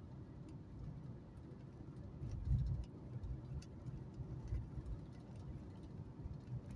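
Car driving along a city road: a low, steady rumble of engine and tyre noise, swelling louder for a moment about two and a half seconds in.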